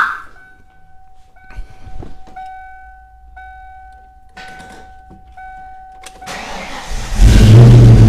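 A sharp click, then a dashboard warning chime sounding as a steady two-tone note with short breaks. About six seconds in, the starter cranks and the 1994–2004 Ford Mustang's engine catches and runs loudly: its first start on the newly replaced ignition lock cylinder.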